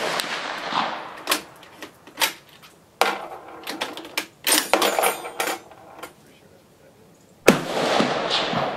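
Carcano M38 short rifle in 6.5 mm fired from a bench rest: the fading tail of a shot, then the turn-bolt worked with a run of metallic clicks and clacks over the next few seconds, and a second sharp shot about seven and a half seconds in with a long fading tail.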